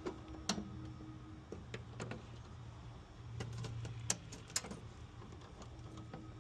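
Scattered small clicks and taps of hand tools and electrical hardware being handled while temporary wiring is taken apart, over a faint steady hum.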